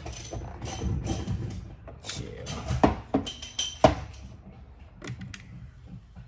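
Irregular metallic clinks and knocks from hand tools working on the car's rear suspension, over background music.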